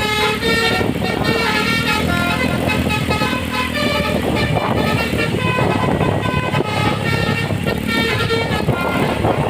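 Bin Ilyas bus's basuri musical horn (telolet) playing a tune in stepping notes over engine and road noise. The notes thin out for a couple of seconds in the middle, leaving mostly the vehicle rumble.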